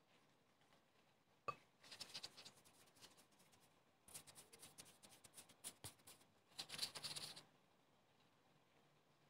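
Sesame seeds sprinkled by hand, pattering faintly onto dough rolls and parchment paper on a baking tray in three short spells, with a sharp tick about one and a half seconds in.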